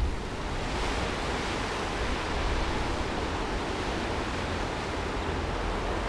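Strong wind blowing hard: a steady rushing hiss with a low, uneven rumble of gusts underneath.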